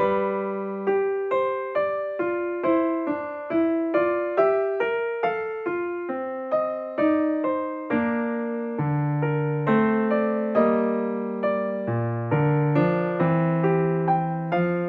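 Background music: a solo piano-like keyboard playing a calm melody of separate notes, each struck and then fading.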